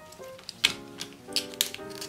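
Outer leaves of a raw artichoke snapped off by hand, several crisp snaps over light background music.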